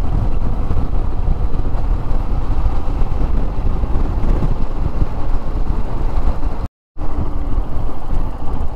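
Riding a Royal Enfield Himalayan motorcycle at speed: wind buffeting the microphone, with engine and road noise beneath it. The sound drops out for a moment about seven seconds in.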